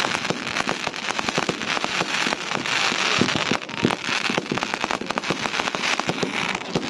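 Ground-launched fireworks spraying sparks, with a continuous crackle: a steady hiss packed with rapid small pops.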